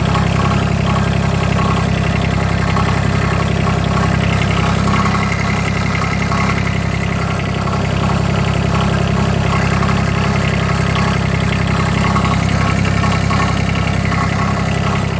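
Yanmar diesel engine of a John Deere 332 garden tractor running steadily at idle, with a fast, even rattle over the engine's drone. The owner is unsure where the rattling and grinding noise comes from.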